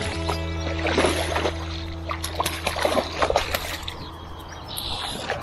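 Hooked rainbow trout thrashing at the pond surface, a run of sharp splashes through the first three seconds or so that thins out near the end as the fish tires.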